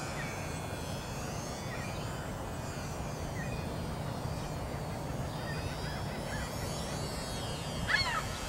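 Electric motor and propeller of a ParkZone UMX Polecat ultra-micro RC plane whining faintly, the pitch sweeping up and down as the plane throttles and passes, over a steady low rumble. A short wavering bird call comes near the end.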